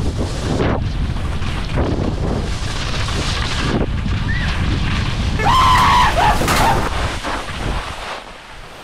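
Wind buffeting the microphone of a skier moving fast downhill, a loud, continuous rumble. A brief high-pitched cry rings out about six seconds in, and the rumble dies down near the end as the skier slows.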